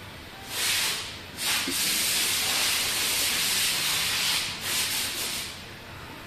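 Pressurised spray hissing onto a repaired car body panel: a short burst about half a second in, then a longer steady spray of about four seconds that cuts off near the end. It wets the panel so that any bulge or dip in the repair shows in the light's reflection.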